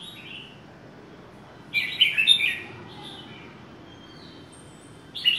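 Caged red-whiskered bulbul singing: one short phrase of quick warbled notes about two seconds in, and the next phrase starting right at the end.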